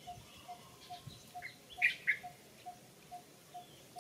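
Baby macaque squeaking: three short, high squeaks in quick succession a little before the middle. Behind them a faint short note repeats steadily about twice a second.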